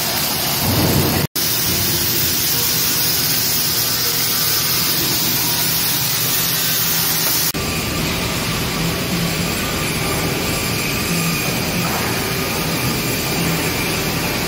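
Steady, loud hiss and rumble of a steel fabrication shop, with arc welding at the start. The sound cuts out for an instant just over a second in and changes abruptly about halfway through, to a steadier factory din with a faint low hum.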